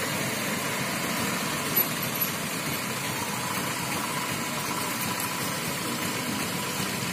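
A motor vehicle engine runs steadily, heard as a continuous hum under traffic noise. Two short knocks come about two seconds in.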